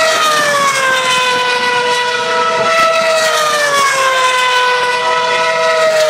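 Formula 1 cars' high-revving 2.4-litre V8 engines running at speed down the straight, a loud continuous scream. Its pitch slides down and jumps back up about every two and a half seconds as cars go by one after another.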